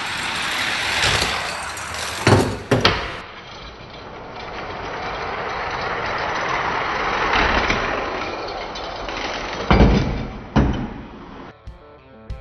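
Hot Wheels die-cast cars rolling down a multi-lane plastic track, a rushing rumble that swells and ends in two sharp clacks as they reach the finish. This happens twice: a short run ending about two seconds in, then a longer run ending near ten seconds.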